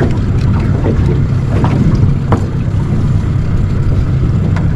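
Small boat's outboard motor running steadily as a low rumble, with wind on the microphone. A few light clicks come through as the hook is worked out of a small fish.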